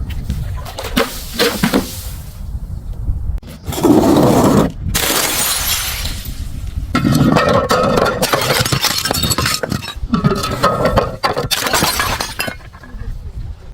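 Glass bottles smashing, a series of separate crashes, each followed by shards tinkling and scattering; the loudest crash comes about four seconds in.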